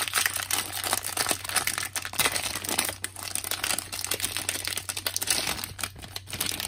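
Plastic wrapper of a 25-card Donruss soccer cello pack crinkling and tearing as hands pull it open, with many small crackles throughout.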